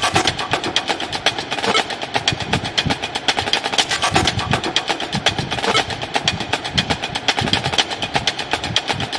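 Background music with a fast, busy percussion beat of rapid clicking hits over low drum thumps.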